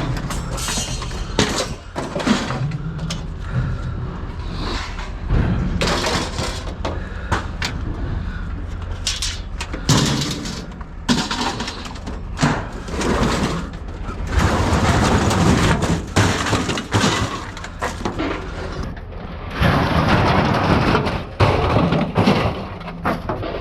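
Scrap metal being unloaded: irregular clanks, thuds and crashes of pieces hitting the pile, over a steady low engine hum.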